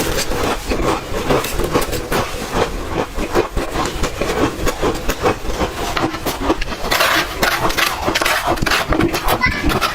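Close-up crunching of ice being bitten and chewed, a dense, irregular stream of sharp cracks and crackles with no pause.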